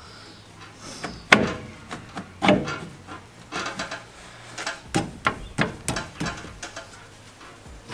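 Metal turbocharger parts being worked into place by hand in a diesel engine bay: irregular clunks and scrapes of metal on metal. The loudest clunk comes about a second and a half in, and there is a run of them near the end.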